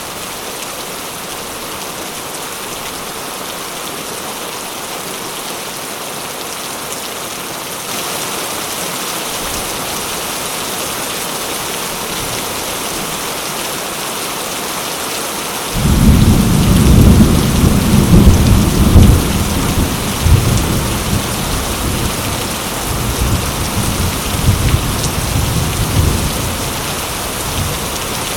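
Steady heavy rain falling. About halfway through, a loud low roll of thunder breaks in suddenly, rumbles in several swells for about twelve seconds, and eases off near the end.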